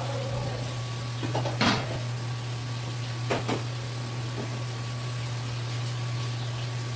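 A few knocks and taps of a knife and hands working on a cutting board while slicing skin-on red sea bream, the loudest knock about a second and a half in and two quick taps a couple of seconds later, over a steady low hum.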